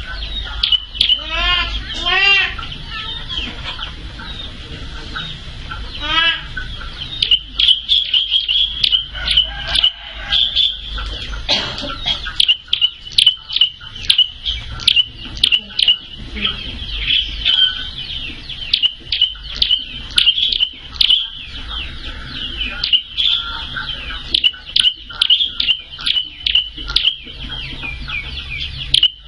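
A prenjak (prinia) calling, a long run of sharp, high chipping notes repeated several times a second. A chicken clucks a few times in the first seconds, and a low steady hum lies underneath.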